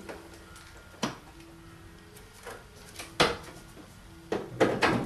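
A few sharp metal clunks and knocks from handling the raised bonnet of a 2001 Toyota Yaris Verso: one about a second in, a louder one about three seconds in, and a quick cluster of three near the end.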